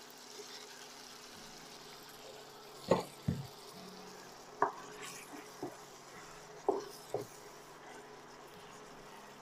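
Chicken, carrots and onion sizzling in a frying pan with freshly added soy sauce, stirred with a wooden spatula. The spatula knocks against the pan about six times from about three seconds in.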